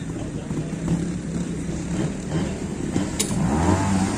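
Trials motorcycle engine running, with the throttle blipped so the revs rise and fall about three seconds in. A single sharp click comes just before the revs.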